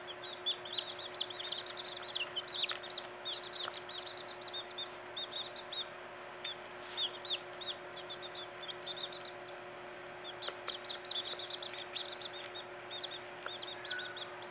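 Newly hatched Silkie chicks peeping: many short, high chirps overlapping without pause, getting busier in the last few seconds, over a faint steady hum.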